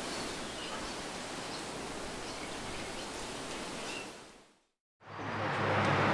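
Steady outdoor ambient hiss with a few faint bird chirps, fading out to silence about four and a half seconds in; a louder outdoor ambience with a low hum then fades back in.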